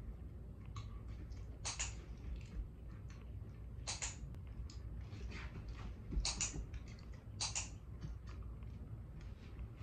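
Dog-training clicker clicked four times, a couple of seconds apart, each a sharp double click. Fainter taps and shuffles of the dog shifting on the rubber-topped platform come between the clicks, over a low steady hum.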